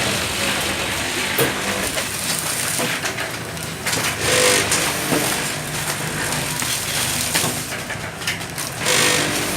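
Automatic pellet packing machine running, with a louder surge of noise about every four and a half seconds as it works through its cycle.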